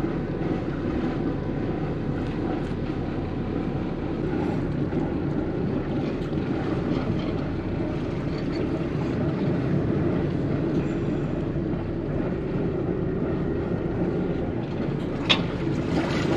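Motor yacht's engines running at low speed as it idles out of the harbour, a steady low rumble with water noise. A single sharp click near the end.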